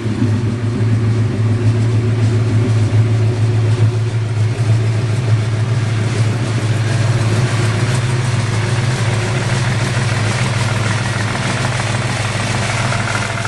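1965 Plymouth Barracuda engine idling steadily through a stainless steel header-back exhaust with an X-pipe and Magnaflow mufflers, heard close to the pipes from beneath the car.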